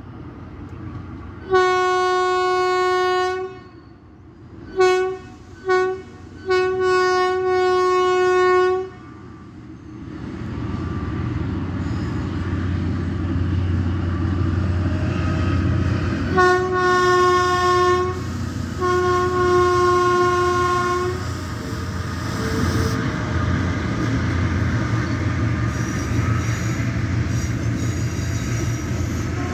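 GE U20C diesel-electric freight locomotive sounding its horn: one long blast, two short ones, then another long one, a pattern repeated as two more long blasts a little past the middle. Between the blasts the locomotive's low diesel rumble builds as the train approaches and passes, with the wagons rolling over the rails near the end.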